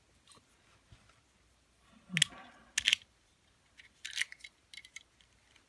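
Abus 50 mm lever padlock and its key being handled: short metallic clicks and scrapes, the loudest three about two, three and four seconds in.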